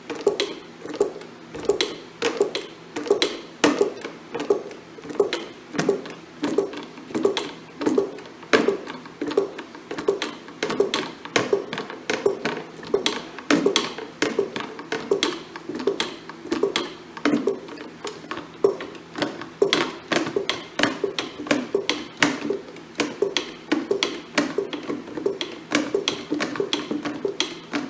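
Hydraulic sleeve puller's hand pump being worked in steady strokes, about one and a half a second, each with a metallic click-and-clack, as the ram draws a broken dry cylinder sleeve out of the block. A faint steady hum runs underneath.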